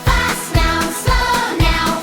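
Upbeat children's song music with a steady beat of about two drum hits a second.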